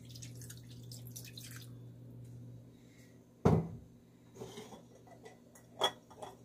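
Water poured from a glass measuring cup into a non-stick frying pan, splashing and trickling for the first second or so. About three and a half seconds in comes a single sharp knock, the loudest sound, followed by a few light clicks.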